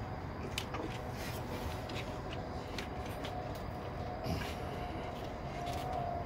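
Steady low background rumble with a few faint scattered clicks and taps of a screwdriver working against metal parts in a car's engine bay.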